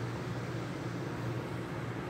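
Steady low hum with a faint hiss: background room tone.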